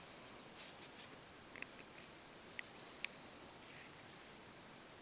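Faint, scattered small clicks and light rustles of a small screwdriver working the tiny screws of an iPhone 3G back into the phone's frame.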